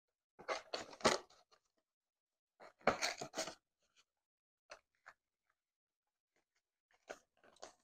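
Paper banknotes rustling and crinkling as they are handled and slid into a cash envelope in a ring binder: two short bursts of rustling in the first few seconds, then a few faint ticks.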